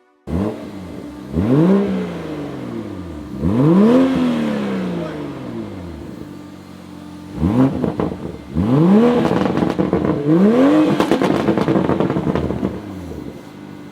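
Toyota GR Supra (Mk5) with the B58 turbocharged inline-six being revved about five times, its pitch climbing quickly and falling back after each blip, with a couple of sharp pops in among the later revs.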